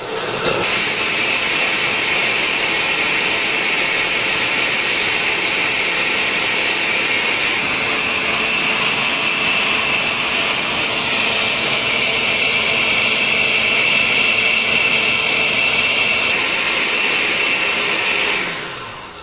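Countertop blender switched on and running steadily at high speed, blending fruit, yogurt and ice into a smoothie, then winding down near the end.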